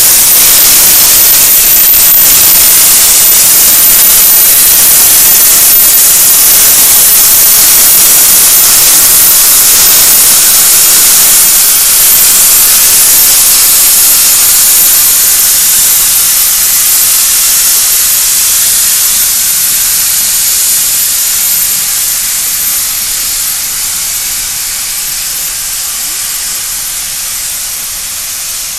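Shay geared steam locomotives passing close by, a loud steady hiss of steam that fades over the second half as the train pulls away.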